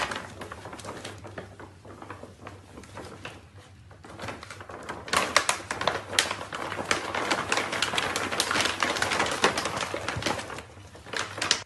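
A pet food bag crinkling and rustling as puppies burrow into it and tug at it: a fast, irregular crackle that turns thicker and louder about five seconds in.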